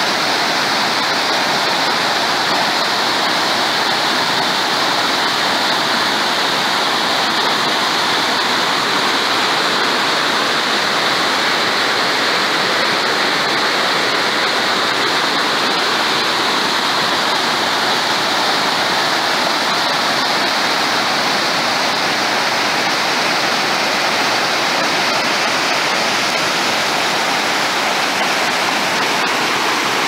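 Large river waterfall: a heavy volume of water pouring over a rock ledge into a foaming pool, a loud, steady rush that does not change.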